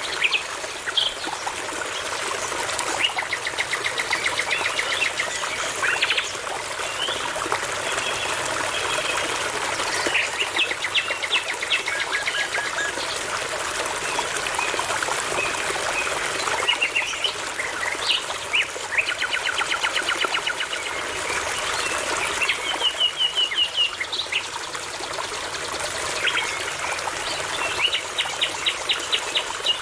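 Nightingale singing, phrases of rapidly repeated notes recurring every few seconds, over the steady babble of a brook.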